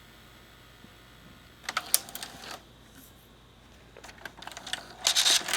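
Mitsubishi VCR's tape mechanism clicking and clattering in two bursts, the first about two seconds in and a longer one from about four seconds, as it works with a newly fitted pinch roller that is misbehaving, which the owner later puts down to the pinch roller mechanism needing realignment.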